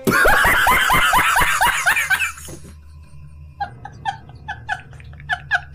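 A man laughing hard: a loud burst of rapid laughs for about two seconds, then after a short pause quieter, stifled giggling in short bursts.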